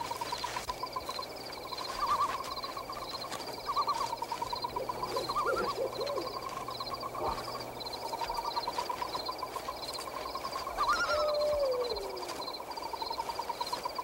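Night-time pond and woodland ambience: frogs and insects trilling and chirping steadily, with an owl hooting now and then; one lower call slides down in pitch about eleven seconds in.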